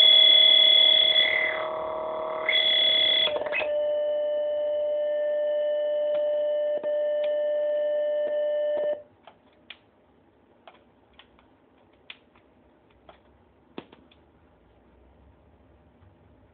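A circuit-bent answering machine's speaker puts out a loud glitched electronic drone of several steady tones at once. The drone shifts twice and cuts off suddenly about nine seconds in. A few faint sharp clicks follow.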